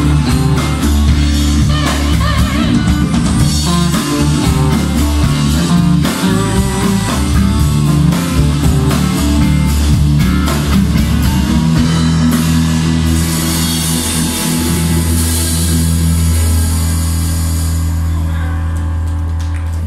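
Live rock band with electric guitars, bass and drum kit. Over half-way through the drum hits stop and the band holds a long chord under a wash of cymbals.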